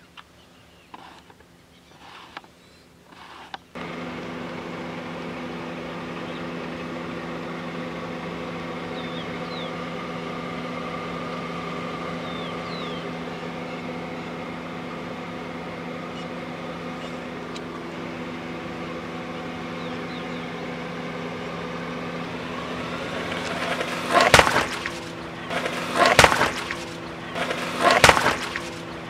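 A car engine idles steadily as the tyre sits against watermelons. Near the end the tyre rolls onto them and they crack and burst with three loud crunches about two seconds apart.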